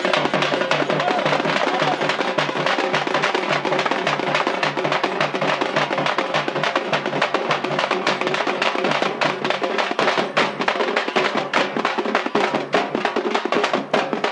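An ensemble of parai frame drums beaten with sticks in a fast, dense, unbroken rhythm.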